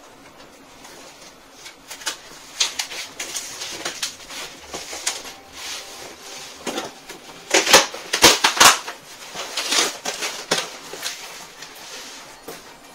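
Utility knife slicing through a corrugated cardboard box and the cardboard being torn open, a run of uneven scraping and ripping strokes that are loudest about eight seconds in.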